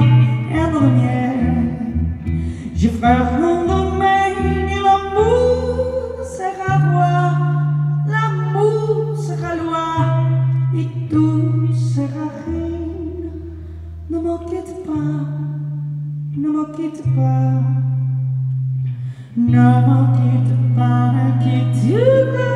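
A woman singing live to her own electric guitar, the guitar holding low notes for a few seconds at a time under the voice.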